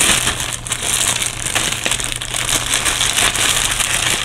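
Clear plastic bag crinkling and crackling continuously as hands pull it open and work the contents loose.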